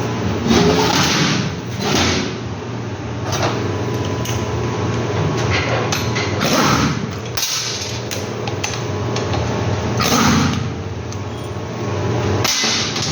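Hand tools working metal on a truck differential as the locking tabs of the bearing nuts are taken off: scraping and scattered clinks, with a few sharp knocks near the end, over a steady low hum.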